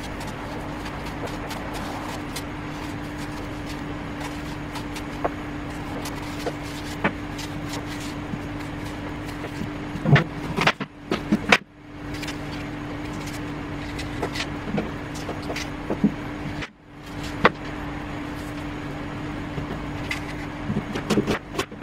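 Steady mechanical hum with a low, level tone, cutting out suddenly twice for about a second near the middle. Light clicks and a few louder knocks from a small knife peeling and cutting an apple sit on top of it.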